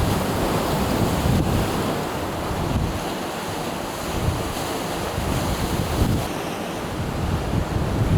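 Sea surf washing steadily against the shore, with wind buffeting the microphone in gusts.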